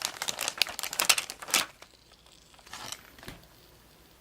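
Plastic bag crinkling in quick bursts as it is handled, for about the first second and a half, then a couple of faint rustles.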